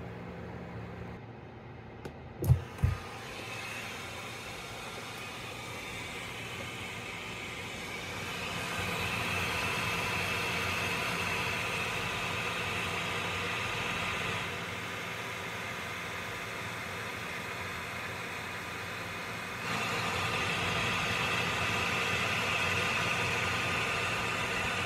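Steady whir of a Voron 3D printer's fans, with two sharp thumps about two and a half seconds in. The whir grows louder about a third of the way in, eases off past the middle, and rises again near the end.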